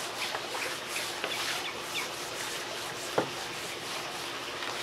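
A hand rubbing and massaging seasoning rub and Worcestershire sauce into raw pork ribs on a metal tray, a soft continuous rubbing, with birds chirping in the background. A single sharp knock about three seconds in as a glass bottle is set down on the wooden table.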